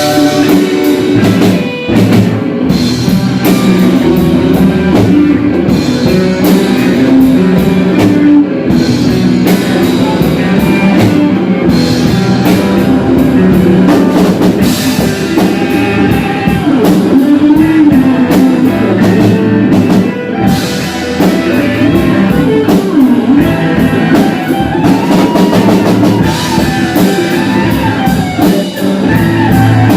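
Loud rock music with electric guitar and a drum kit playing steadily, with no singing.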